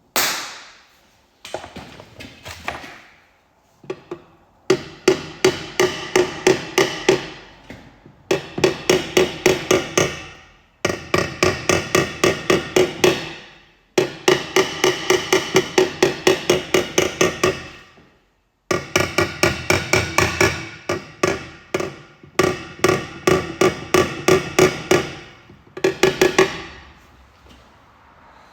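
Hammer blows ringing on the steel two-stroke expansion chamber of a Suzuki RGB500 exhaust, tapping out a small crease. The blows come about three to four a second in runs of a few seconds with short pauses, each strike leaving a metallic ring.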